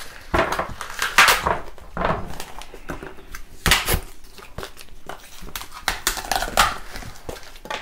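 Paper being crumpled and rustled by hand, in irregular bursts, the loudest about a second in and again near four seconds in.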